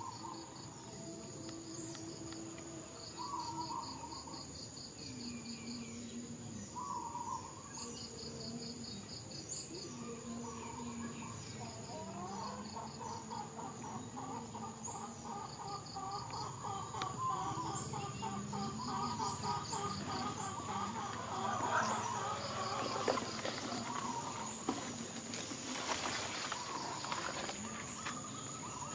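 Insects droning and trilling steadily in a rain-soaked field, with a chorus of lower repeated calls, frogs among them, that thickens and grows louder in the second half. A brief rustle of grass near the end.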